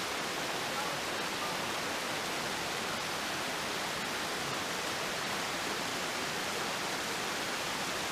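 Small waterfall cascading over stepped rock ledges: a steady rush of falling water, the creek running relatively low.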